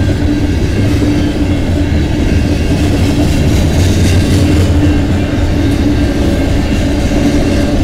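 Freight cars of a long freight train (covered hoppers, then tank cars) rolling past, their wheels making a steady loud rumble on the rails, with scattered clicks.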